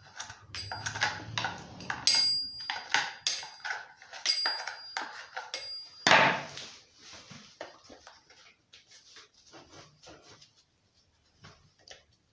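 Metal tool clicking, tapping and scraping on a chainsaw body as packed dirt is cleaned out, several taps ringing with a short high ping. A louder knock comes about six seconds in, then fainter scattered taps and scrapes.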